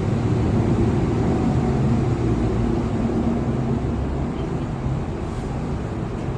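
Passenger lift running between floors: a steady low rumble and hum from the car and its drive, easing slightly near the end.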